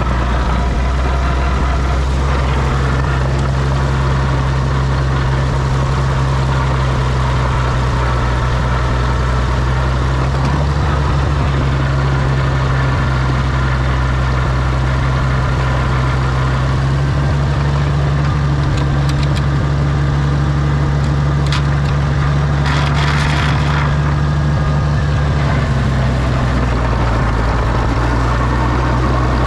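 Oliver OC-6 crawler tractor engine running steadily, its note shifting slightly about a third of the way in and again later. A brief hiss about three quarters of the way through.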